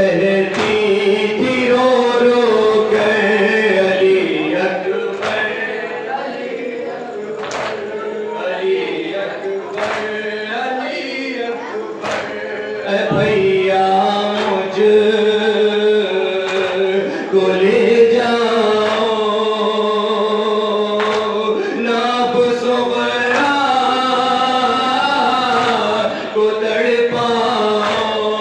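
Male voices chanting a nauha, a Shia mourning lament, in unison into a microphone, with long held notes. Sharp slaps of hands striking the chest in matam come now and then, mostly in the first half.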